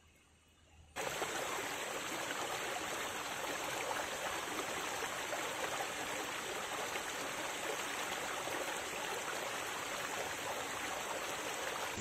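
Shallow rocky stream running over small cascades: a steady rush of water that cuts in abruptly about a second in, after a near-silent start.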